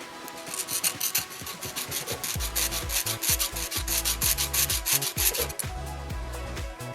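Half-round file scraping across a newly made brass bushing in quick repeated strokes to remove burrs. The strokes start about half a second in and stop about a second before the end.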